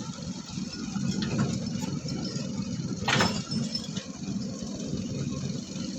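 Heavy diesel machinery running steadily while an excavator loads sand into a dump truck, with a few light clicks and one sharp clatter about three seconds in.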